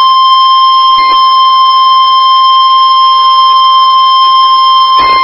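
Emergency Alert System warning alarm tone, the weather-radio attention signal: a loud, steady, single-pitched electronic tone held unbroken. It signals that a new warning message is about to be broadcast.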